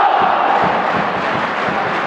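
Football crowd in the stands, many voices shouting and chanting with no break.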